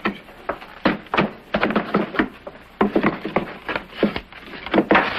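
A wooden crate being pried open: a string of irregular sharp knocks and cracks of wood.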